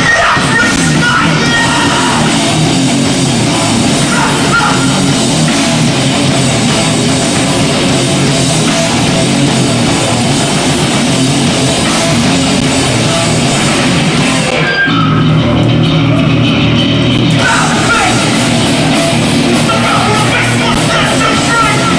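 Hardcore punk band playing live and loud: distorted electric guitars, bass and drums on a camcorder's sound track. About fifteen seconds in, the cymbals and high end drop out for a couple of seconds, leaving a heavy low riff, before the full band comes back in.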